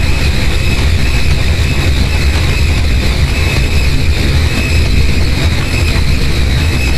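Harsh noise music: a loud, dense, unchanging wall of distorted noise with a heavy low rumble and a couple of steady high tones running through it.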